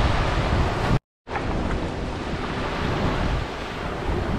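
Small waves washing onto a sandy beach, with wind noise on the microphone giving a steady low rumble. About a second in, the sound cuts out to silence for a quarter of a second, then comes back.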